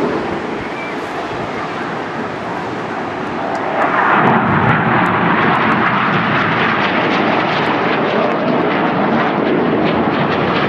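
Red Arrows BAE Hawk T1 jets flying past, a steady rushing jet-engine noise that grows suddenly louder about four seconds in and stays loud.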